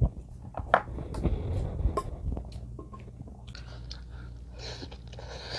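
A person eating: slurping green-onion strands of spicy beef soup (yukgaejang) off a spoon and chewing, with quick wet mouth clicks over the first couple of seconds, then softer chewing.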